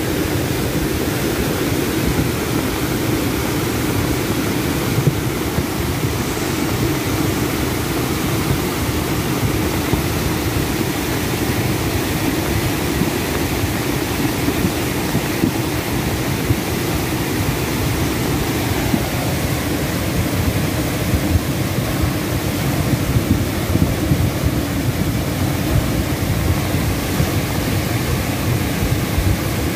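A river in flood, its fast-flowing water rushing steadily.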